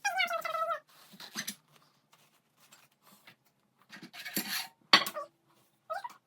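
A house cat meowing once, a drawn-out call that slides slightly down in pitch, followed by rustling and a sharp click about five seconds in.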